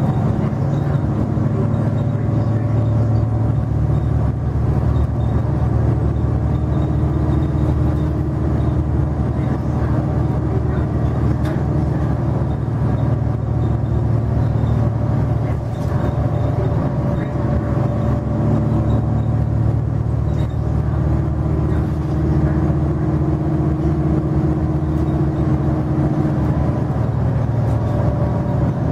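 Cummins ISL9 diesel engine and Allison B400R automatic transmission of a Nova Bus LFS, heard from inside the passenger cabin while the bus is under way. A steady low drone runs throughout, with a higher hum coming in twice, about a quarter of the way in and again past the two-thirds mark.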